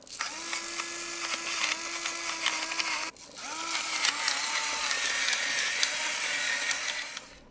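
Electric salt and pepper grinder, its small motor whirring with a gritty grinding hiss over it. Two runs: the first lasts about three seconds, then after a brief pause a second runs for about four seconds, each rising briefly in pitch as it spins up.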